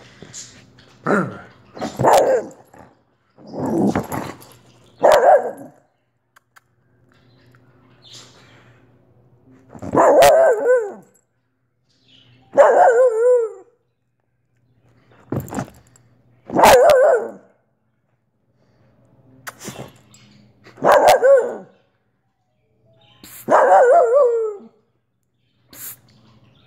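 Wheaten terrier barking, about ten barks a second to a few seconds apart with a longer pause midway; several barks are drawn out with a wavering pitch.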